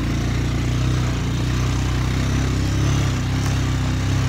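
Honda Foreman ATV engine running steadily at a low pitch while riding along a trail.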